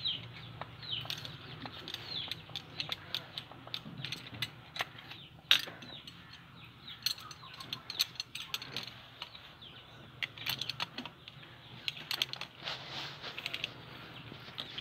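Irregular metal clicks, clinks and scrapes of an adjustable wrench working a threaded pipe fitting, with a few short squeaks, as a 12-volt DC water pump is tightened onto its pipe. One sharper clack stands out about five and a half seconds in.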